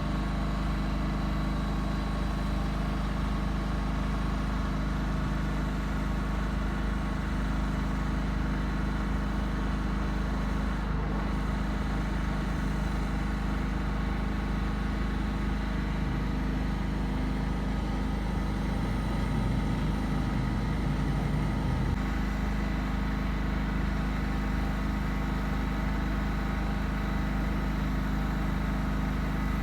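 Steady machine hum with a constant low drone and several fixed tones, unchanging throughout.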